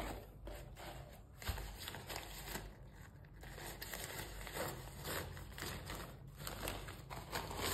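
Faint rustling and handling noises from a fabric drawstring storage bag being untied and opened around a portable butane stove, with scattered small clicks and scrapes.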